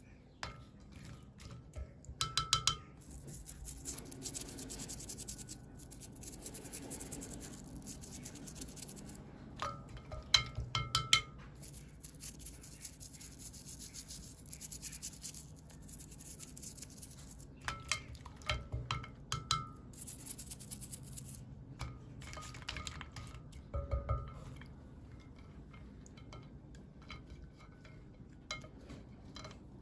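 Small hard plastic toy pieces and packaging being handled, with clusters of quick clicks and clinks and scraping or rubbing in between.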